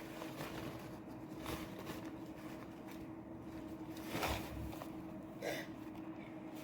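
Soft breathing and sniffles from a woman in the middle of a sneezing fit, loudest about four seconds in and again a second later, over a steady low hum.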